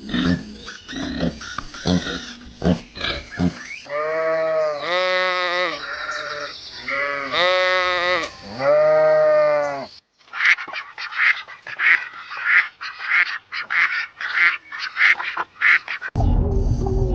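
Goats and sheep bleating, several long wavering bleats in a row. Then, about ten seconds in, Muscovy ducks take over with a fast run of short chattering calls. Near the end a loud rush of water cuts in.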